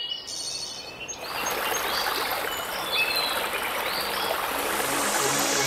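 Birds chirping over running water: the rushing of a stream comes in about a second in and grows louder, with short bird calls above it. Music begins to fade in near the end.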